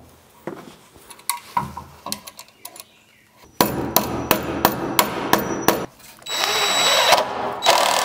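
Power tools fastening a metal electrical box to a wooden stud: scattered knocks as the box is placed, then a run of rapid, evenly spaced knocks with a tool running, then a cordless drill/driver running in two steady spells near the end as it drives screws into the box.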